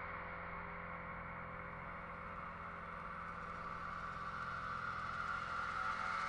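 Horror-film ambience: a steady droning hum under a hissing wash, swelling louder in the second half.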